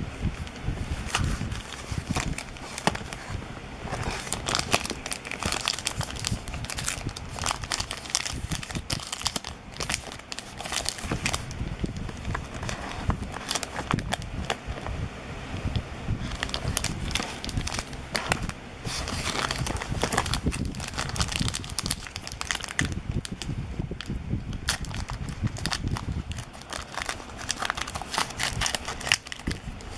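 Plastic wrapper of a trading-card value pack crinkling and tearing as the pack is opened and handled, with many small irregular crackles and rustles.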